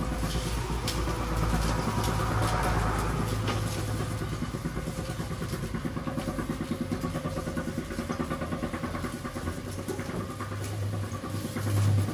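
Motor-driven sugarcane mill running with a steady hum, its geared rollers crushing cane stalks as they are pushed in. The hum grows louder near the end.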